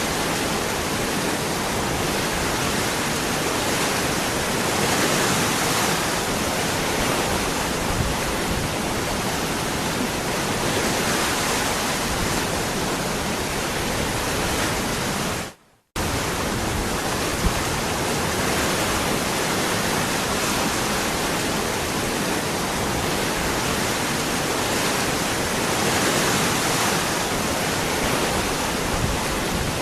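Waterfall: a steady rush of falling water. About halfway through it fades out and drops to silence for a moment, then comes back abruptly.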